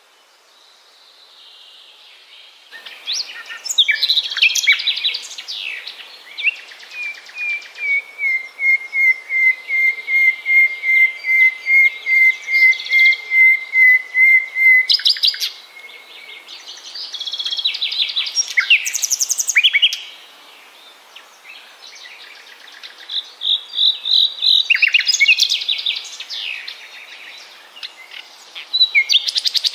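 Common nightingale singing, starting about three seconds in: varied phrases of fast trills and rattles, with a long run of evenly repeated whistled notes on one pitch in the middle.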